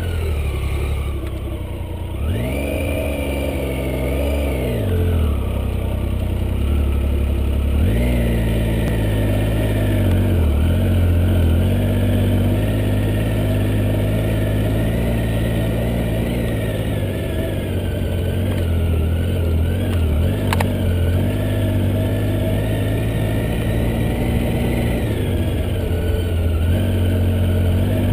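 Motorcycle engine running under load as the bike rides through loose sand. Its pitch rises and falls repeatedly with the throttle, and there is a sharp click about twenty seconds in.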